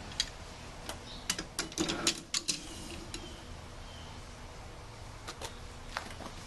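Garage door opener trolley being slid onto its rail section by hand: a quick run of light clicks and knocks about a second in, then a few more near the end.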